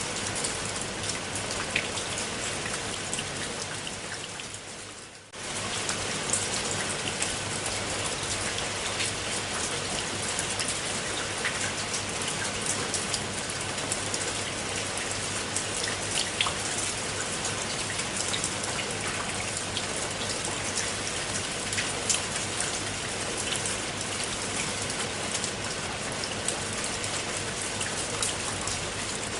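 Steady rain falling on a pool of water, a dense patter with individual drop ticks. About five seconds in it fades down briefly and then cuts straight back in at full level.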